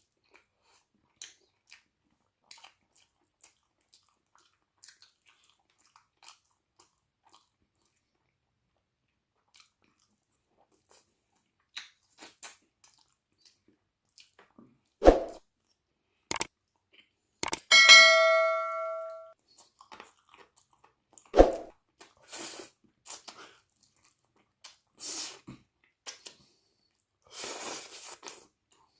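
Close-up eating sounds: faint mouth clicks and wet chewing. Midway come a couple of sharp knocks and a single metallic clang that rings for about a second and a half, then louder bouts of crunchy chewing.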